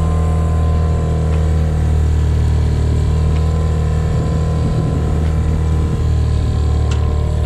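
A small 9.9 hp outboard motor running steadily at a constant speed, pushing a sailboat along.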